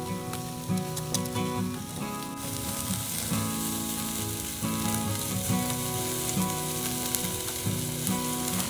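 Beef slices sizzling and crackling on a wire grill over hot charcoal, a steady hiss dotted with small pops, over soft background music.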